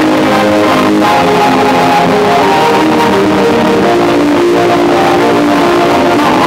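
Background music led by guitar, its notes changing steadily.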